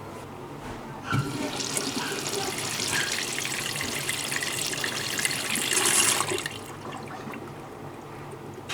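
Water rushing into a drum-type washing machine through its inlet. It starts abruptly with a knock about a second in and stops after about five seconds.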